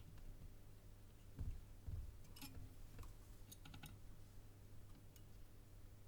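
Faint, scattered light clicks and taps of hand soldering on a small circuit board, over a low steady hum.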